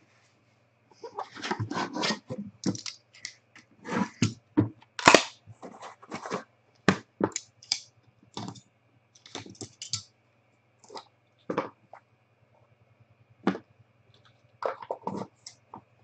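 Handling noise from a sealed trading-card box being opened: cardboard and plastic wrap rustling and scraping, with irregular short taps and clicks as the lid comes off and the white inner card boxes are lifted out. The loudest clatter comes about five seconds in.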